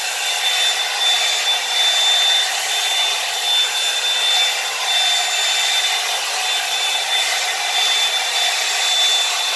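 Revlon One-Step hair dryer and volumizer brush blowing steadily, an even rush of air with a thin steady high whine from its motor.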